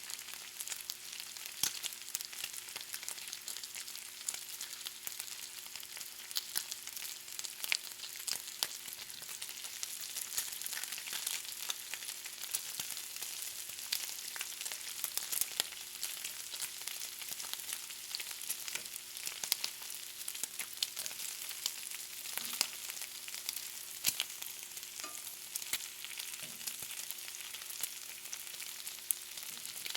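Bacon frying, sizzling with a steady hiss full of small sharp pops and crackles.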